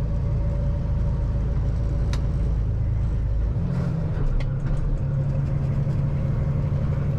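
PACCAR MX13 diesel of a 2016 Kenworth T680 semi truck droning steadily, heard inside the cab while the empty truck pulls up a highway grade, with road noise underneath. About halfway through, the engine's note shifts to a different pitch.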